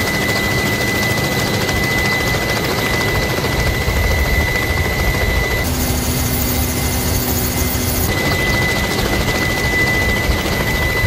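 Helicopter in flight: steady rotor and turbine noise with a constant high whine. For a couple of seconds in the middle the sound changes to that heard inside a helicopter cockpit.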